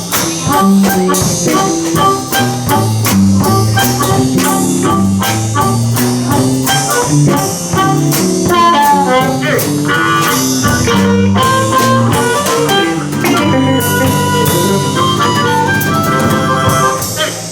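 Live blues band with two electric guitars and a drum kit playing an uptempo boogie instrumental passage. The drums and moving bass line give way to long held notes near the end, as the tune winds down to its close.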